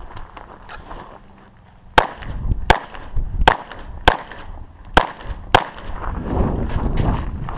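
Six shots from a 9mm EAA/Tanfoglio Witness Elite Limited Pro pistol, fired in quick succession about two-thirds of a second to a second apart, starting about two seconds in. Scuffing movement noise follows.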